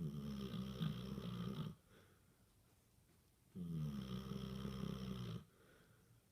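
Basset hound snoring in its sleep: two long snores, each just under two seconds, with about two seconds of quiet between them.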